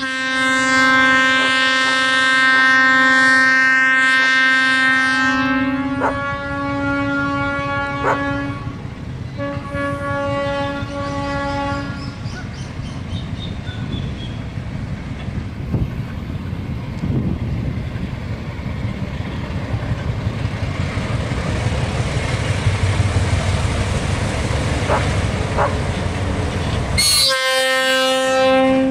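ALCo RSD16 diesel locomotives sound their horn in a long blast and then two shorter ones over about the first twelve seconds. The diesel engines rumble and the freight wagons' wheels click over the rail joints as the train draws near. The horn sounds again briefly near the end.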